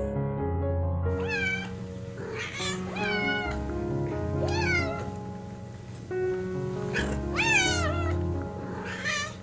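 An animal calling about six times in short cries, each rising then falling in pitch, over background music.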